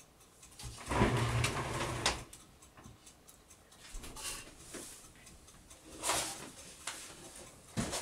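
Handling noises: a scraping, rumbling shuffle about a second in that ends in a sharp click, a brief hiss near six seconds, and a few light clicks.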